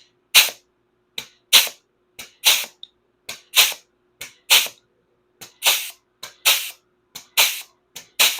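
Body panel crimping tool (combination crimper and hole punch) working along the edge of a piece of sheet metal to form a stepped lap edge. It strokes about once a second, nine times, each stroke a small click followed by a sharp snap.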